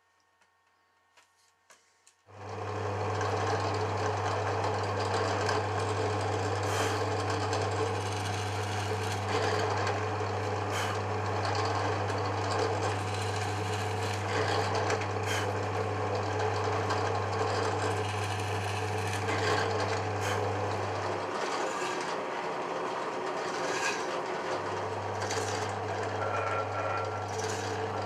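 Drill press starting up about two seconds in and running steadily, its bit boring and then countersinking holes in multiplex plywood. The motor hum drops out for about three seconds late on and comes back.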